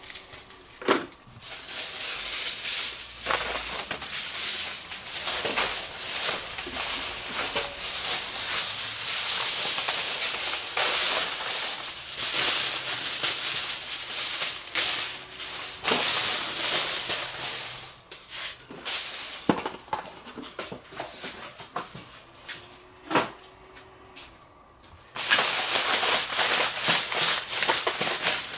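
Aluminium grill foil crinkling and rustling as it is pulled off the roll and spread out over butcher paper, in long stretches of crackle. It goes quieter for a while about two-thirds in, with a few clicks, then crinkles loudly again near the end.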